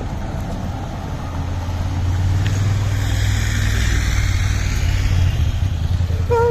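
A car passing close by: steady engine hum with tyre and road noise that swells over a few seconds as it goes past.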